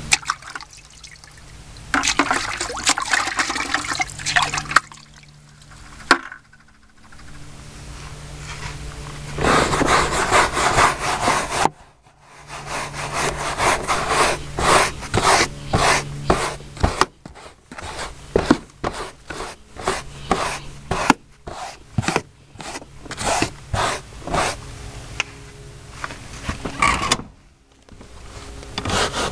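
Hand scrub brush scrubbing sprayed truck floor carpet in quick back-and-forth strokes, with a few short pauses between runs.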